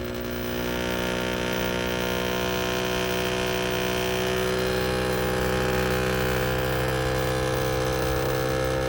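Outdoor unit of a Samsung WindFree 12,000 BTU inverter split air conditioner running with a loud humming vibration in its sheet-metal casing, growing louder about half a second in, its pitch creeping slightly upward. The vibration is abnormal: the unit's sister units run normally, and the owner finds nothing touching it.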